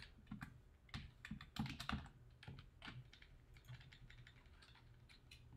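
Typing on a computer keyboard: faint, irregular key clicks, coming thickest in the first two seconds and more sparsely after.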